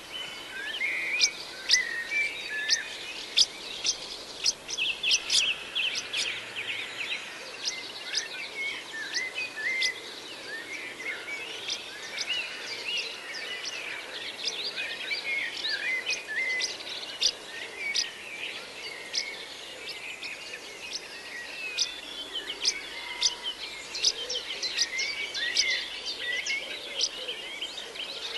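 Small songbirds calling: a busy, continuous twittering of short high chirps and sharp tick-like notes, many overlapping.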